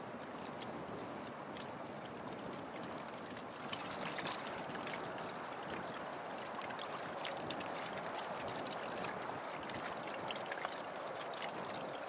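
River water lapping and rippling in a steady wash, with many small splashy ticks.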